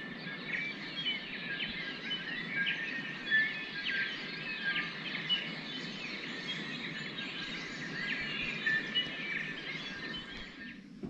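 Several small birds calling and chirping at once in a dusk chorus, many quick overlapping chirps and trills, over a steady low rush of background noise; both cut off suddenly near the end.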